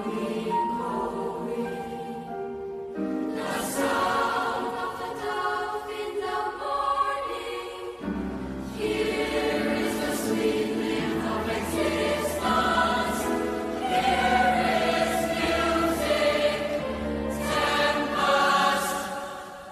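Mixed youth choir of girls' and boys' voices singing in several parts, sustained chords with moving lines. A low bass layer fills in about eight seconds in, and the sound falls away near the end.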